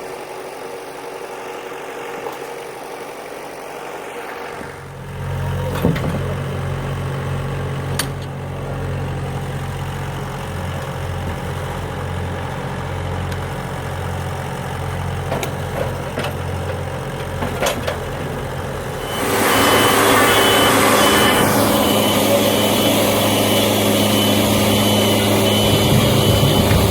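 An engine running steadily, picking up about a fifth of the way in. About two-thirds through, the sound grows much louder with a rushing, grinding noise, and a high beep repeats.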